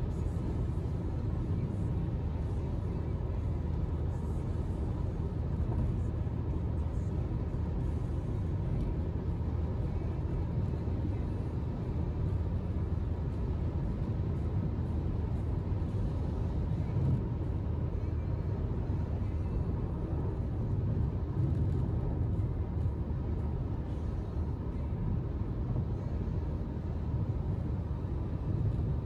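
Steady road and wind noise inside a BMW's cabin at around 150–160 km/h on a rain-wet motorway: a low, even rumble with a hiss over it.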